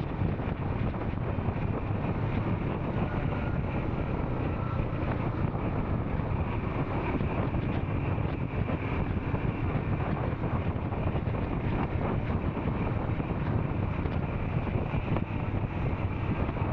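Royal Enfield Scram 440's single-cylinder engine running steadily while the motorcycle is ridden, mixed with wind noise on the microphone.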